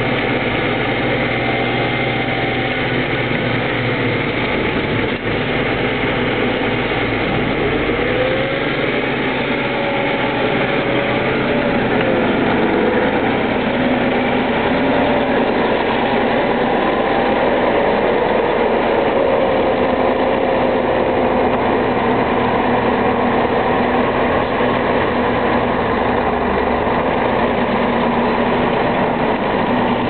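T-150K tractor's six-cylinder diesel engine running steadily while pulling a five-furrow reversible plough. A whine that wavers up and down in pitch rides over the engine for a while around the middle.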